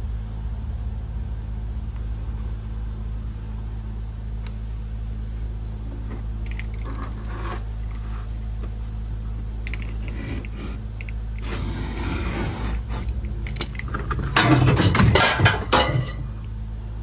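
Snap-off utility knife blade slicing and scraping through leather on a cutting mat, with rustling and handling of the leather pieces and louder handling noise near the end, over a steady low hum.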